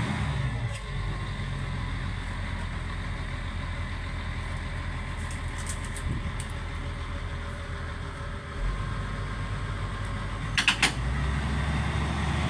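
Engine running steadily with a low rumble. Near the end come two or three sharp, quick clinks.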